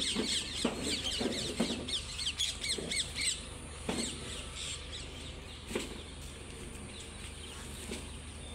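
A flock of small birds chirping busily, the calls thickest for the first three seconds and then thinning out, with a couple of sharp knocks partway through.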